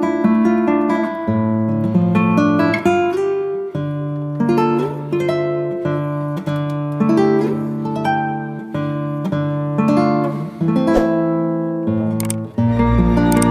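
Background music on plucked guitar picking a melody of separate notes, with a fuller, deeper section coming in near the end.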